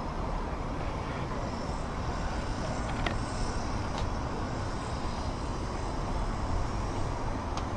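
Steady outdoor background noise: a low rumble with a hiss above it, with a couple of faint clicks about three and four seconds in.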